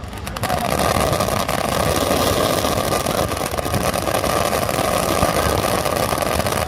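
A firework burning with a steady loud buzzing hiss and dense crackling, starting suddenly.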